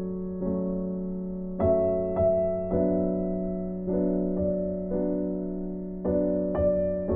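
Slow, gentle piano music: held chords with new notes struck about once a second, each fading slowly.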